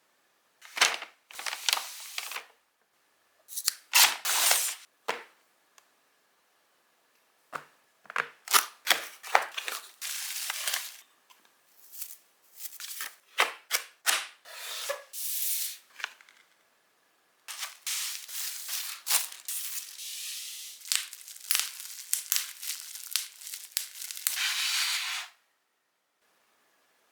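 Packaging being opened by hand: cardboard and plastic wrap rustling, crinkling and tearing, with sharp snaps, in bursts with short pauses.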